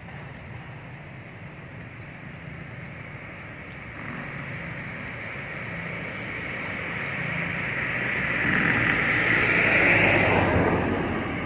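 A motor vehicle passing by: a steady rushing engine and road noise that grows louder over several seconds, peaks near the end, then fades.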